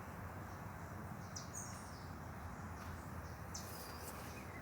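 Outdoor ambience: a steady faint background hiss with a few short, high bird chirps now and then.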